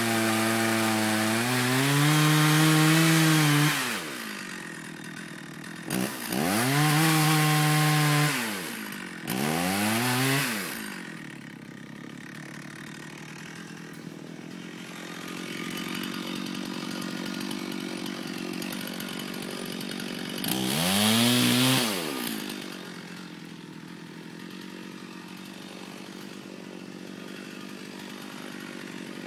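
Stihl chainsaw revving up to high speed four times, at the start, around six and ten seconds in, and about twenty-one seconds in, then dropping back to idle each time, while a dead tree is being cut.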